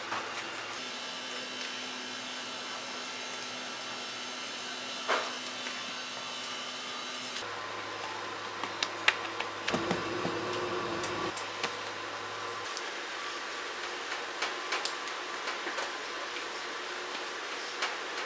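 Steady hum of bakery kitchen machinery and fans, which changes abruptly a couple of times, with scattered light clicks and knocks from work on the bench.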